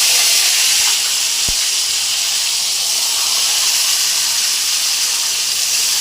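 Dried salt fish frying in hot oil in a kadai, a steady loud sizzle, with one short knock about one and a half seconds in.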